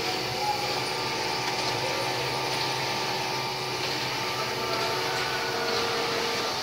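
Computerised flat-bed knitting machines running: a steady mechanical whir and hum with a few faint steady tones, without a break.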